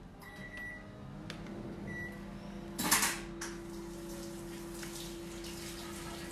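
Microwave oven being set and started: two short keypad beeps, a clunk about three seconds in, then the oven running with a steady hum.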